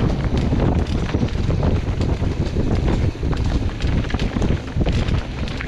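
Specialized Enduro Expert full-suspension mountain bike descending a rough dirt singletrack at speed. Heavy wind rumble on the microphone, with tyre noise over dirt and rock and frequent short rattles and clacks from the bike.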